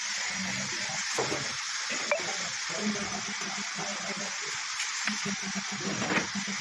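A steady hiss with a few light clicks and taps, from a chisel working the lock mortise in a wooden door frame.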